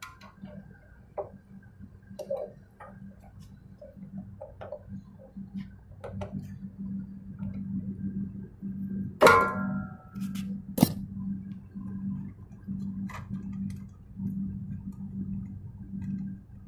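Spanner working the compressor's mounting nuts and bolts: scattered light metal clicks and ticks, with one loud metallic clank about nine seconds in, a sharp click a moment later and another a few seconds after that. A steady low hum runs underneath.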